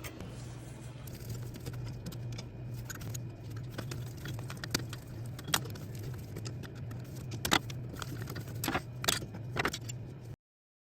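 Scattered sharp clicks and rattles of small parts being handled while taking a printer apart, over a steady low hum. The sound cuts off suddenly near the end.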